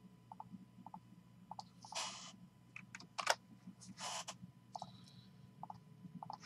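Faint handling noises at a desk: scattered light clicks, two short rustles about two and four seconds in, and one sharper click between them.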